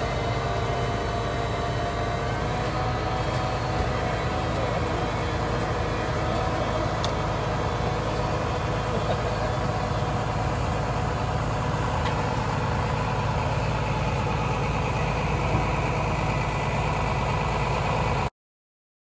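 Tractor engine running steadily under load while pulling a tile plow through the field to lay drainage tile. The sound cuts off suddenly near the end.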